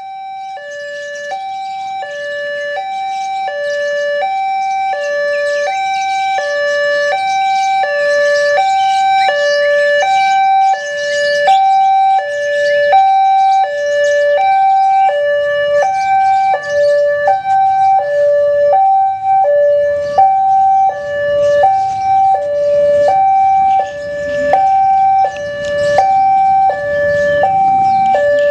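Railway level-crossing warning alarm sounding as the barrier comes down for an approaching train: an electronic two-tone signal that alternates steadily between a higher and a lower note, each lasting about two-thirds of a second. It grows louder over the first few seconds.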